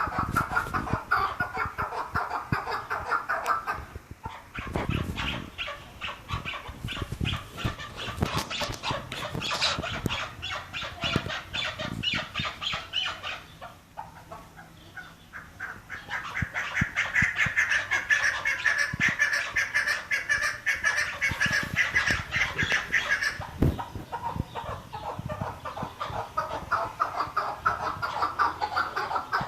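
Chukar partridges calling: rapid, repeated clucking calls run almost without a break, easing off briefly about halfway through before picking up again.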